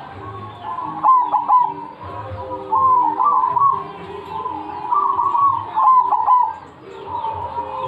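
A bird singing a loud, repeated song, with a burst of phrases every second or two.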